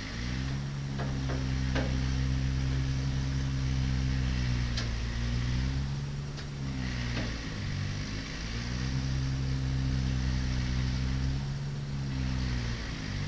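A motor running steadily with a low hum whose pitch sags and recovers a few times, with several sharp clicks of metal on metal.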